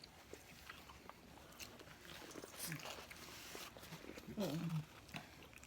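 Close-up eating sounds from crab being eaten: faint chewing and mouth noises with scattered small clicks. A short hummed "mm" a little past four seconds.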